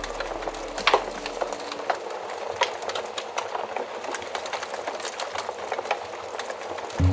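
Wood fire crackling in a fireplace: irregular sharp pops and snaps over a steady hiss, the loudest pair about a second in.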